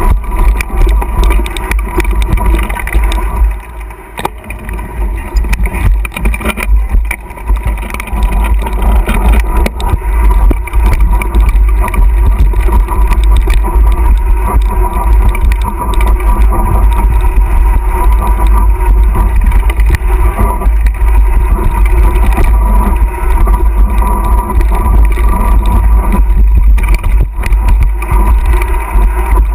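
Wind buffeting the microphone of a bike-mounted action camera, over the rattle and bumps of a mountain bike running down a rough dirt trail. It goes quieter for a few seconds about four seconds in, then stays loud.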